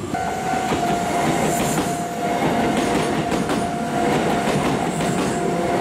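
Kintetsu Minami-Osaka Line electric train passing close by, its wheels clacking over the rail joints. A level-crossing warning bell rings steadily over the running noise.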